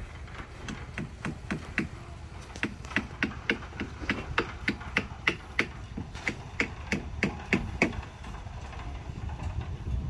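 Hammer blows on the building site: sharp knocks at a steady pace of about three a second, with a brief pause about two seconds in, stopping about eight seconds in.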